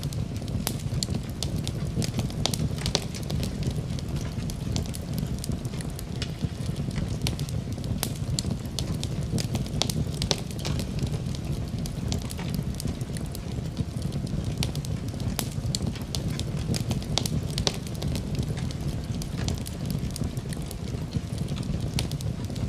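Wood fire burning in a fireplace: a steady low rumble with many irregular sharp crackles and pops.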